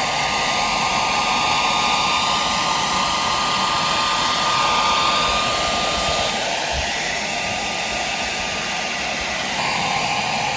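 A small electric fan motor blowing steadily with a thin whine, switched on just before and running throughout. It dips somewhat about six seconds in and comes back up near the end.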